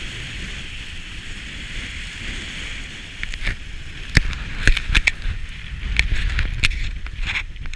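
Skis gliding over groomed, hard-packed snow with a steady hiss, over the low rumble of wind on a helmet or body-mounted action camera's microphone. From about three and a half seconds in, a run of sharp scrapes as the ski edges bite into the snow in turns.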